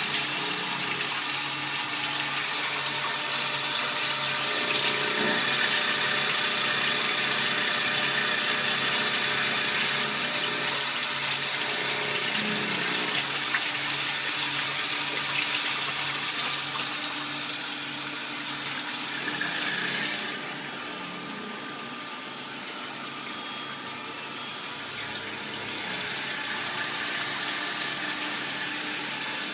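Small-diameter multi-function automatic lathe running while turning a part, a steady mechanical whir with a hissing, watery rush typical of cutting coolant. It gets quieter about two-thirds of the way through.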